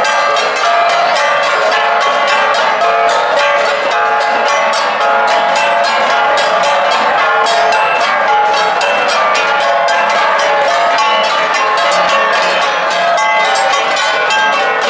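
Ensemble of Cordillera flat gongs (gangsa) struck in a fast, steady rhythm, the ringing metallic tones overlapping continuously.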